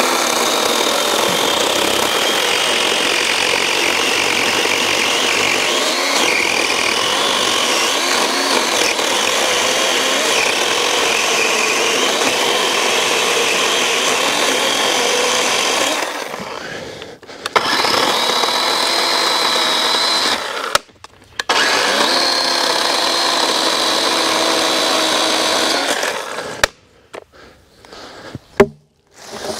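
DeWalt DCCS620 12-inch battery chainsaw cutting through a downed log, its electric motor running with a high whine in three stretches and stopping twice briefly before it cuts off near the end. The bar is starting to pinch in the cut. A few sharp knocks follow.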